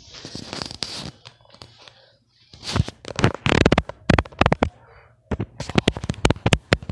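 A dense run of irregular sharp clicks, knocks and crackles, dropping to near quiet for about half a second around two seconds in, then thick again.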